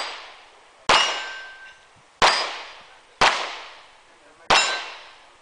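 Handgun shots fired one at a time, about a second apart: four sharp cracks, each dying away with an echo and a faint metallic ring.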